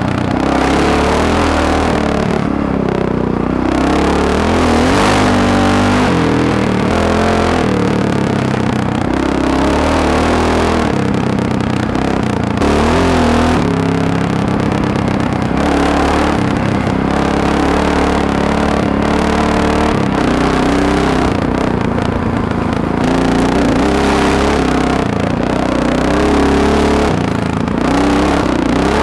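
Four-stroke single-cylinder Honda XR dirt bike engine heard from on the bike, revving up and down continuously as it is ridden along a dirt trail, with rushing wind noise on the microphone.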